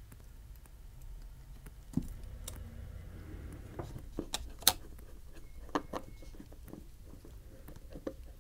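Small scattered clicks and ticks of a precision screwdriver and small parts against an iPhone 12's metal frame and brackets as tiny screws are set and driven, the sharpest click a little past halfway.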